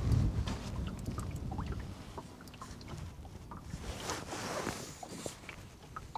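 Wind on the microphone and water lapping against a small boat's hull while a hooked fish is played. The wind rumble eases off after the first couple of seconds, leaving scattered light ticks and scratches and a brief louder hiss about four seconds in.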